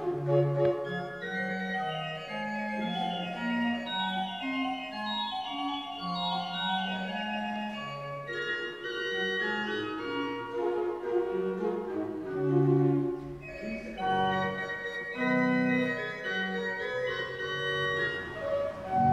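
Arp Schnitger pipe organ playing, several voices moving at once over a stepping bass line.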